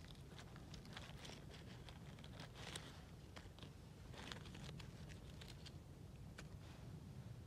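Faint crackling and rustling of dry leaf litter and jelly ear fungi as a hand picks them off a fallen branch: scattered small crackles over a low steady rumble.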